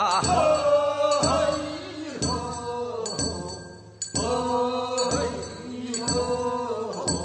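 Korean funeral bier-bearers' song (sangyeo sori) from Gyeongsang province: voices chanting a slow, wavering dirge in phrases, with a hand bell struck about once a second.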